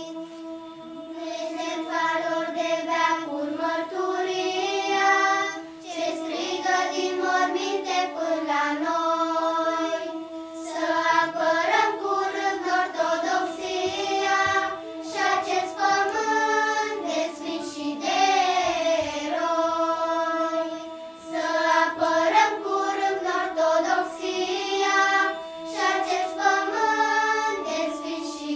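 Children's choir singing, phrase after phrase with short breaks between them.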